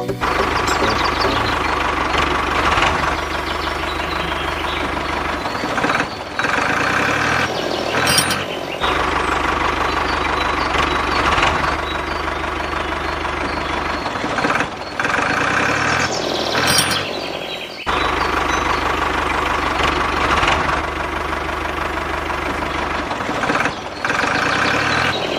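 Steady engine-like running sound. It breaks off and resumes several times.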